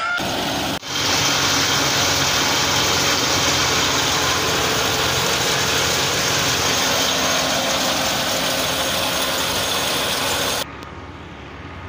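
Tractor-driven mustard threshing machine running: a steady, loud mechanical din of the spinning drum and belts over the tractor engine's low hum. About ten and a half seconds in it drops to a quieter, duller rumble.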